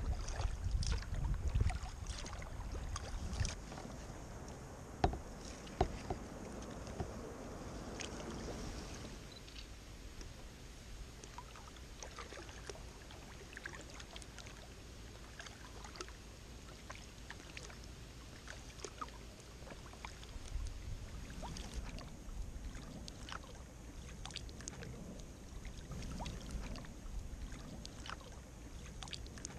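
Quiet water sounds from a kayak on a calm river: small drips and splashes against a soft hiss, with a low rumble in the first couple of seconds and the sound growing quieter about a third of the way in.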